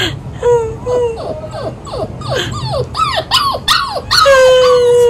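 Pomchow puppy whimpering along with a woman's pretend crying: a run of short falling whines that come faster, then about four seconds in a long, loud howl that slowly sinks in pitch.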